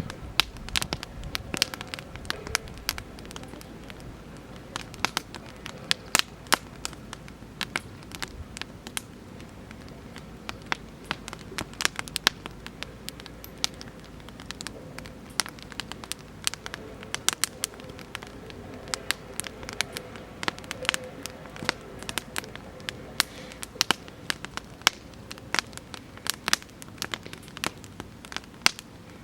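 Oak-wood campfire burning, with frequent sharp, irregular crackles and pops over a low steady hiss.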